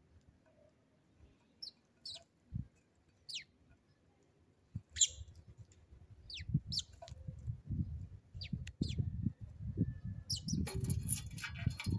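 Sparrows giving short, high chirps every second or so, several of them quickly falling in pitch. Low thumps and rumble run under the second half, and a burst of scratchy rustling comes near the end.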